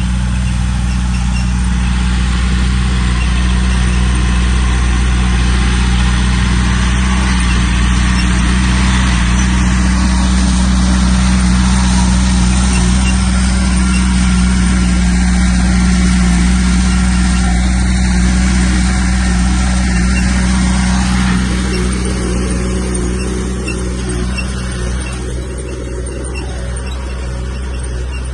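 Heavy diesel earthmoving machinery running steadily under load. It grows louder and noisier through the middle, then eases off near the end.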